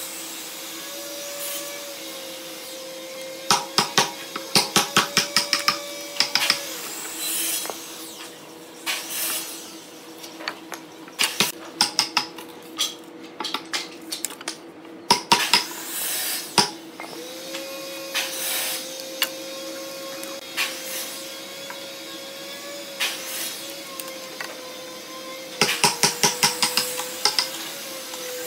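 Workshop sounds: a steady machine hum throughout, with bursts of rapid light taps and clicks from hand tools, a few seconds in and again near the end.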